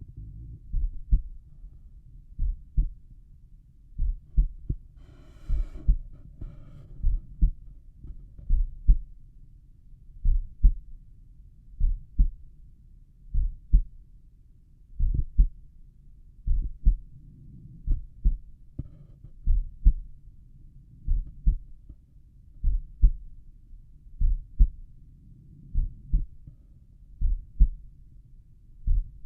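Slow resting human heartbeat heard through a stethoscope at the tricuspid valve area: steady paired lub-dub thumps, about one beat every one and a half seconds. About five seconds in, a brief gurgling stomach rumble sounds over the beats.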